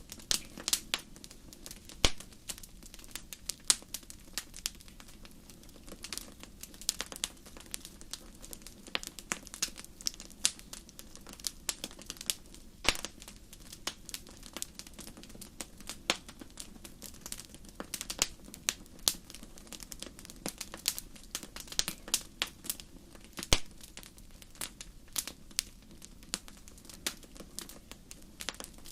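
Wood fire crackling, with a steady low hiss and frequent irregular snaps and pops of burning wood, a few much sharper pops standing out.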